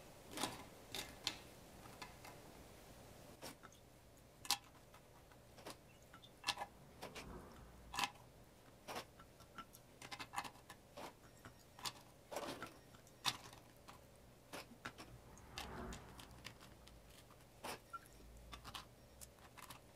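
Faint, irregular clicks and soft taps as coffee-dipped biscuits are laid in rows in a glass baking dish, with the odd knock of fingers against the glass.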